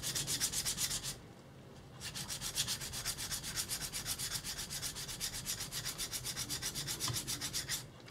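Steel kitchen knife blade rubbed on a whetstone in quick, even strokes, several a second, grinding the edge down to a single bevel. The strokes pause for about a second early on and stop shortly before the end.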